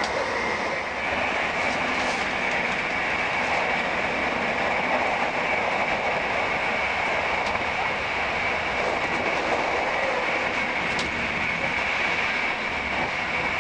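Cabin noise inside an Italian passenger train running at about 107 mph: a steady rush of wheel and track noise with a faint high whine and a few light clicks.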